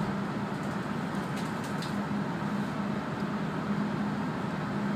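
Steady engine hum and running noise of a city route bus, heard from inside the cabin, with a couple of faint ticks about a second and a half in.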